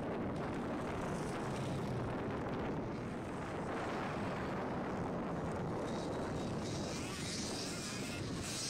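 Dirt bike engines running on a motocross track, a steady rough rumble, with more hiss in the highs near the end.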